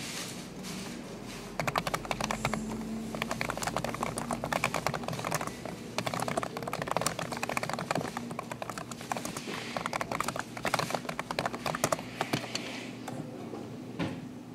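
Fast typing on a computer keyboard: a rapid, uneven run of key clicks that starts about a second and a half in, with a short lull midway, and dies away near the end.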